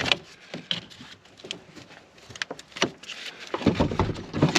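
A truck battery being worked loose and lifted out of its tray: scattered sharp clicks and knocks of hard plastic and metal, then heavier bumps near the end.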